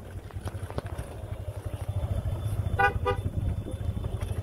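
Vehicle engine running with a low rumble, and a horn sounding two short toots about three seconds in.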